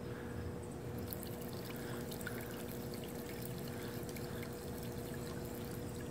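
Water trickling and lapping, with a steady electric hum underneath and a few light ticks about one to three seconds in.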